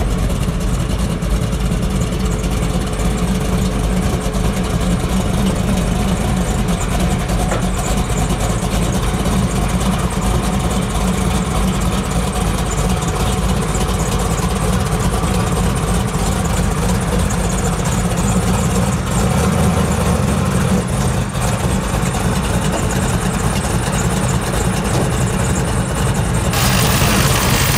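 Box Chevy Caprice coupe's engine idling with a steady low rumble as the car rolls slowly down off a tilt-bed trailer.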